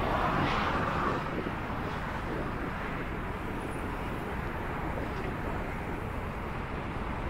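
Steady rush of wind and tyre noise from a moving bicycle, with a louder rush that fades out about a second in.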